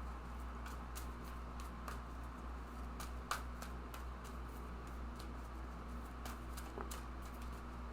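Tarot cards being shuffled and drawn by hand: scattered soft flicks and clicks of card stock, over a steady low hum.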